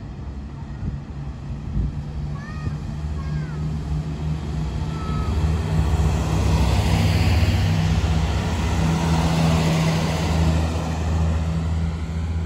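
A BR 642 Desiro Classic diesel multiple unit runs past with its underfloor diesel engines droning steadily. Rolling noise from the wheels on the rails swells as the cars go by, loudest a little past the middle.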